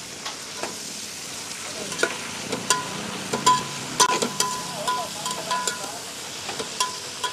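About a kilo of sliced onions with crushed dry chilli and garlic sizzling in hot oil in a large metal pot. A flat metal spatula stirs and scrapes them, knocking against the pot so that it briefly rings. The knocks come repeatedly from about two seconds in.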